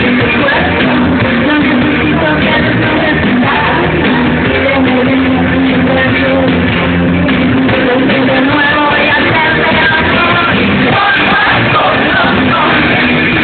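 A live rock band with electric guitar and a woman singing, played loud and heard from the crowd.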